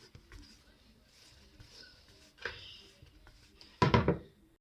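Faint rubbing and handling as a bare hand spreads cooking oil around the inside of a bowl, with a light knock about halfway. A brief voice sound comes near the end.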